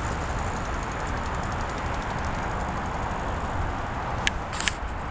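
Steady hum and hiss of city traffic, with a low rumble, and a few sharp clicks near the end.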